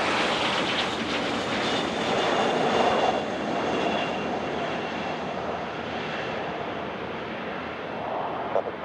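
Gulfstream G200 business jet's twin turbofans going by, a steady jet noise with a thin high whine. The noise peaks about three seconds in, then fades slowly as the whine dies away.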